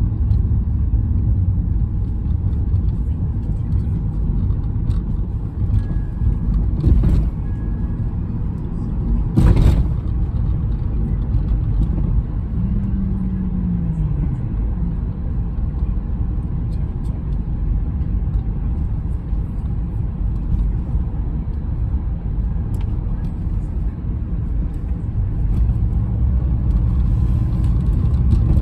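Car road noise heard from inside the cabin while driving: a steady low rumble of tyres and engine, with two sharp knocks about seven and nine and a half seconds in.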